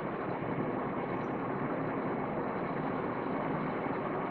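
Steady background noise with no distinct events standing out from it.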